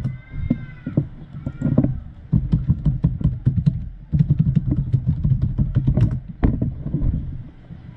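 Typing on a computer keyboard: quick, irregular key clicks over an uneven low rumble.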